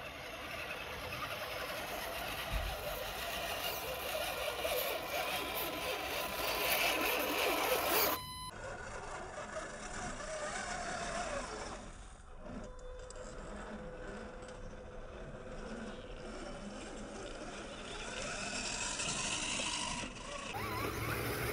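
Electric motor and gearbox of a 3D-printed radio-controlled Unimog model truck whining as it crawls over dirt, the pitch rising and falling with the throttle.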